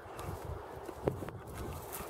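Staffordshire bull terrier gnawing and tugging at a thin sapling: irregular cracks and knocks of teeth on wood and rustling twigs, with one sharper crack about a second in.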